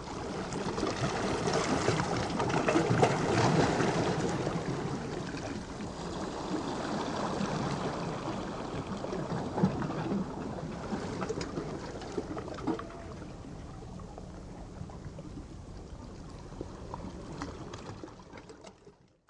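Water lapping against a rocky shore and small waves washing up a beach, a steady rushing wash that fades out at the end.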